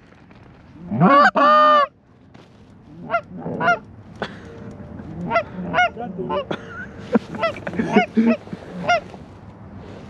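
Geese honking: a loud, close run of honks about a second in, then fainter single honks repeating through the rest.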